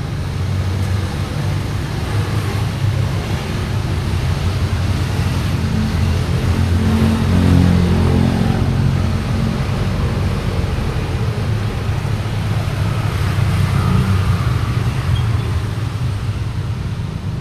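Road traffic: a steady rumble of passing motor vehicles, with engine drone swelling as one vehicle goes by close about halfway through, and another swell a little later.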